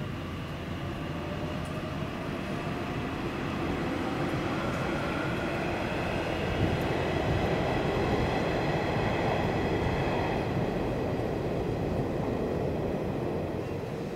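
Nishitetsu electric train running past: a rumble of wheels on track that grows louder over several seconds and eases off near the end, with a high whine of steady tones over it.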